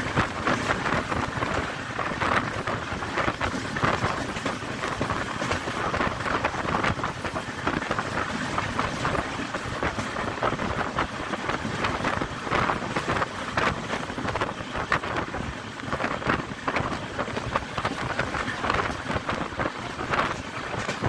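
Passenger train running at speed, heard at an open coach window: a steady rumble of wheels on rail with wind rushing over the microphone and irregular rattles throughout.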